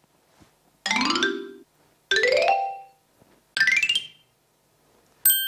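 A short musical sound-effect cue: three quick rising runs of notes, each starting higher than the last, then a single bright bell-like ding about five seconds in that rings on and slowly fades.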